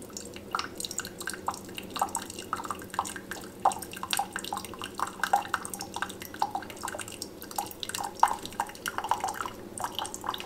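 Keurig K-Slim single-serve coffee maker dispensing hot water into a ceramic mug, an irregular rapid dripping and trickling over a steady low hum. This is its first brew cycle, run with plain water and no pod.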